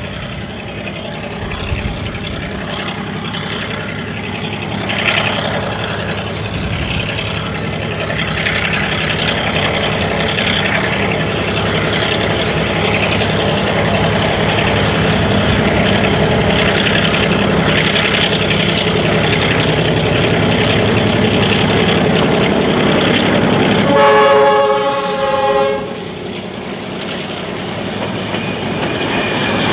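Clyde/EMD G6B diesel locomotive approaching with its engine running, growing steadily louder, then sounding one blast of its horn about a second and a half long, about four-fifths of the way through. Afterwards, wooden passenger carriages roll past with wheels clattering over the rail joints.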